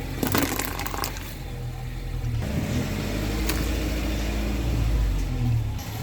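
Car engine running at low speed while its tyres roll over and crush objects. A burst of crunching and cracking comes in the first second, and a single sharp crack about halfway through.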